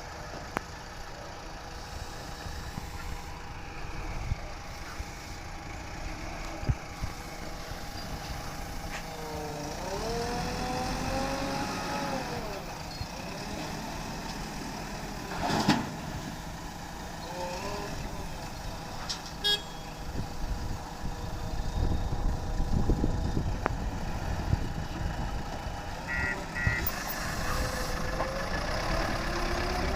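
Heavy diesel machinery running at a work site: a steady engine note whose pitch rises and falls as it is worked, about ten seconds in and again near the end, with a sharp clank about halfway.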